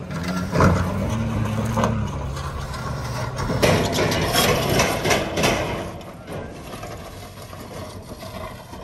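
A pickup truck engine running, with a sharp knock about half a second in. From about three and a half seconds in comes a stretch of clattering and knocking.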